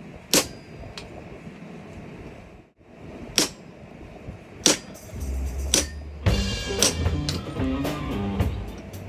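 A few single, sharp hammer blows on forge-heated leaf-spring steel, several seconds apart. About five seconds in, background music with bass and drums comes in.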